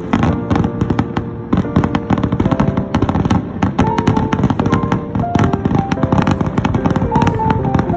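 Fireworks crackling in a dense, rapid barrage over music played for the show, whose held notes change every half second or so.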